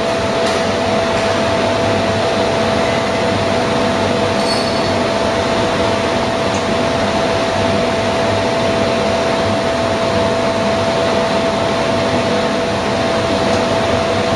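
Webster & Bennett Titan CNC vertical borer running: a steady, even mechanical drone with a constant pitched hum, unchanging throughout, and a few faint ticks.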